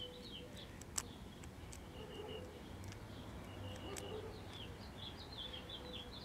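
Faint bird chirps in the background: short, high notes repeating throughout. A single small click comes about a second in, with a few fainter ticks after it.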